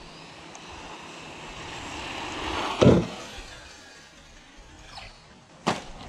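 A cheap RC car's electric drive whirring louder over a few seconds, then a loud thud as it comes down hard off a jump in a bad landing. A second sharp knock follows near the end.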